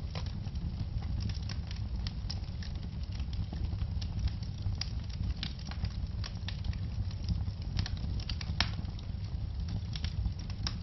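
Wood logs burning in a fireplace, crackling and popping at irregular intervals over a low steady rumble of flame, with a louder pop near the end.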